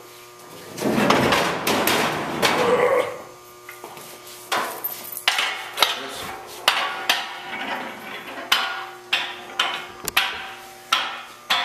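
A clatter of steel parts being handled, then a run of sharp metallic knocks, about two a second, each with a short ring.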